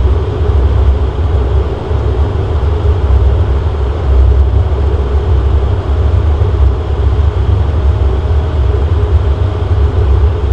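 Dash 8 Q400's Pratt & Whitney PW150A turboprop engines and propellers turning over slowly at ground idle while taxiing. Heard from inside the cabin, it is a steady, heavy low drone with a faint steady hum above it.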